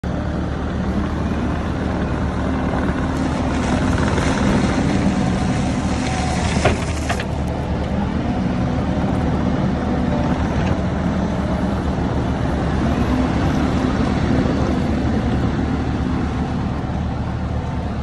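Kubota SVL97-2 compact track loader's diesel engine running steadily as the machine tracks across the site moving dirt and debris with its bucket. Two sharp knocks come about seven seconds in.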